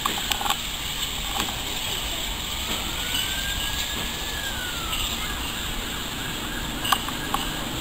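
Steam tank engine No. 1744, a Great Northern N2, moving off across curved pointwork: a steady hiss with a few sharp clicks, and a faint squeal that rises, holds and falls in pitch over about two seconds in the middle.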